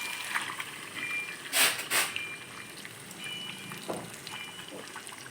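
Marinated chicken pieces tipped into a pan of hot fried masala. They hiss loudly in two short bursts about a second and a half and two seconds in, then keep sizzling more quietly.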